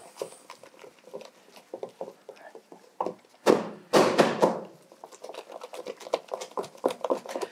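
Thick Spätzle dough being beaten with a wooden spoon in a stainless steel bowl: quick wet slaps several times a second, with a few louder strokes about halfway through. The dough is being beaten hard so that no lumps remain and it comes away from the spoon.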